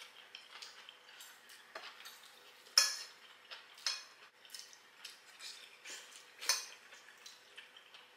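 Metal fork and knife clinking and scraping against a ceramic bowl and plate while eating, in scattered light clicks, with two louder clinks about three seconds in and again about six and a half seconds in.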